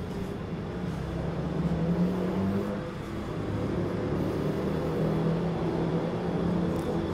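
A motor vehicle engine running close by over general street traffic noise. Its low hum is steady, and it swells about two seconds in and again in the second half.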